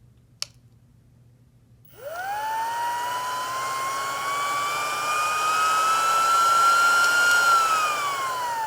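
Portable rechargeable electric air pump switched on with a click. Its motor and fan spin up with a high whine that keeps rising slowly for about five seconds. Near the end it is switched off and the whine falls as it winds down.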